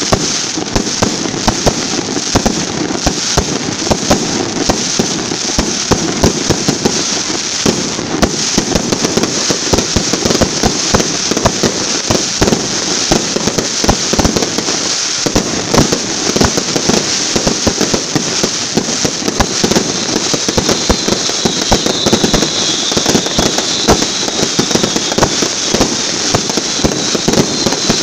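Fireworks display in a dense, continuous barrage: rapid crackling and bangs from rising comets and bursting shells, with no let-up. A high, slightly falling whistling tone joins in about twenty seconds in.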